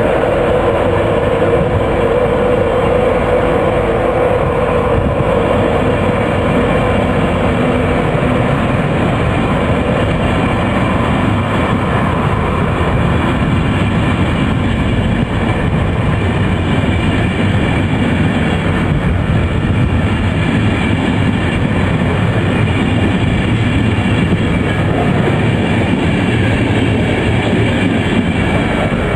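East Coast InterCity 225 express train's Mark 4 coaches running past close by: a steady, loud rolling rumble of wheels on rail with some clickety-clack. A mid-pitched hum is strong at first and fades out after several seconds.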